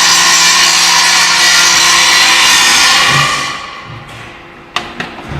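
A power tool running loudly and steadily, then winding down about three seconds in, followed by two sharp clicks or knocks near the end.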